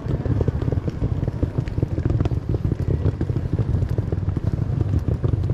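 Rolling suitcase wheels rattling over paving stones: a steady, rapid, uneven low rattle.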